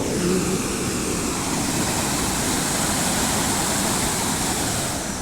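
Floodwater rushing past, a steady loud noise.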